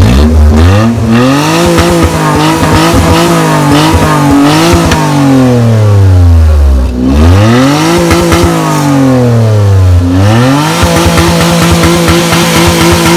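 Maruti Alto's small three-cylinder petrol engine revved through its exhaust three times: each time the pitch climbs, holds high for a few seconds, then falls back toward idle. The silencer carries a slight odd note in its sound.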